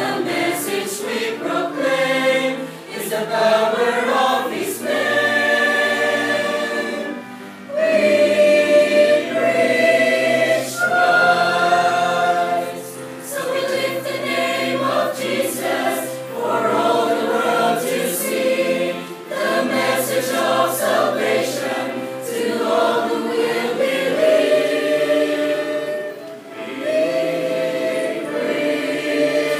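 Mixed choir of women's and men's voices singing a hymn together, holding long notes, with brief breaks between phrases.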